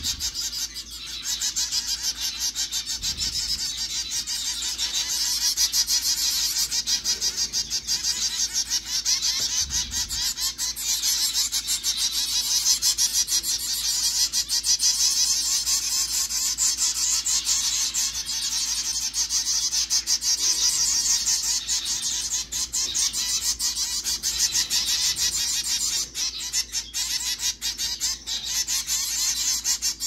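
Fledgling songbirds giving rapid, high-pitched begging calls nonstop while being syringe-fed. The calls are many a second, the sign of hungry young birds asking for food.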